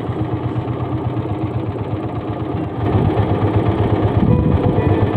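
A small boat's engine running steadily at slow trolling speed, with an even pulsing beat; it gets louder about three seconds in.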